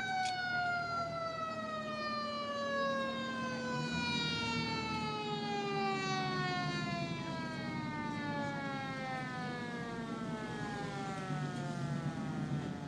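A siren winding down, one long tone that falls slowly and steadily in pitch, with an engine running underneath.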